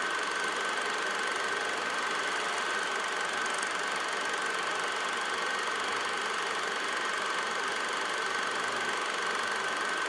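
Film projector running: a steady mechanical whirr with a constant high whine, unchanging throughout.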